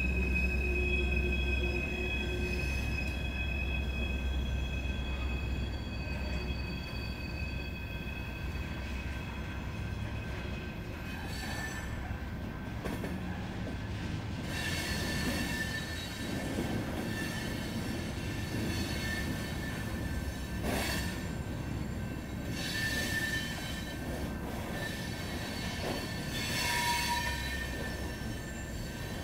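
Train wheels squealing on the rails in several steady high-pitched tones, over a low rumble that fades after the first few seconds. From about halfway through, the squeal comes in louder surges.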